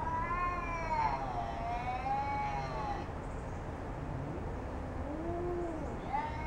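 Two domestic cats yowling at each other in a standoff: a long wavering high yowl lasting about three seconds, then a lower drawn-out yowl, and another high yowl beginning near the end. These are territorial warning yowls between the cats squaring off.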